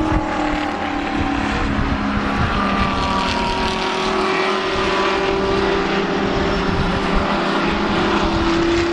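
GT race car engines running on the circuit, several engine notes overlapping and slowly rising and falling in pitch as the cars go round.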